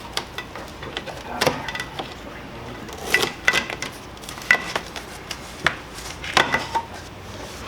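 Scattered metallic clinks and knocks of metal parts and hand tools being handled while a radiator is fitted into a car's front end, a few of them ringing briefly.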